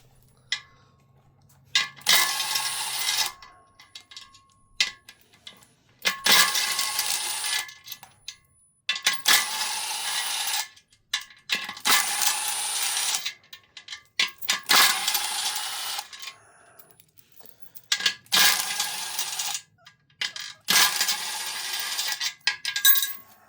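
A power tool backs out the bolts of a bead-lock ring in seven short bursts, each about a second and a half long, with a steady whine running through each burst. Short metallic clicks and clinks fall in the gaps as the tool is moved from bolt to bolt.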